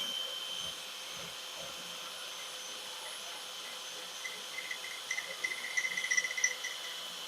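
Electric drill with a small grindstone winding down, its high whine fading out just after the start. A faint steady hum follows, then a run of rapid high-pitched chirps for a few seconds in the second half.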